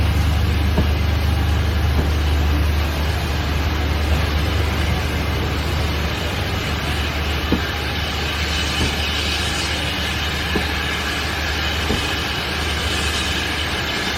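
Train running on the line, a steady low hum with occasional faint clicks; a thin higher whine joins about halfway through.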